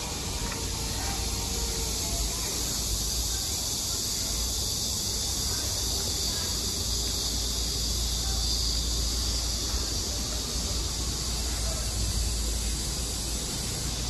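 A steady, high-pitched drone of insects, over a low rumble.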